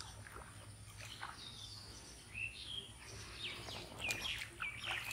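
Birds chirping in short calls, few at first and coming more often in the second half, over a faint steady low hum.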